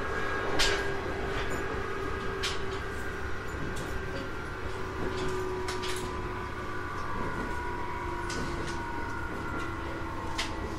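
Interior running sound of a JR East 719 series electric train: a steady low rumble with a faint wavering motor hum, and a few sharp clicks scattered through it.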